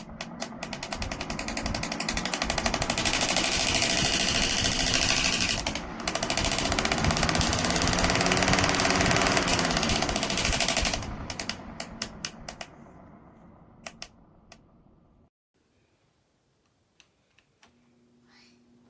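PELONIS 20-inch box fan running with a loud, very fast clicking rattle. After about 11 seconds the clicks spread out and slow as the fan spins down, and the sound cuts off suddenly a few seconds later.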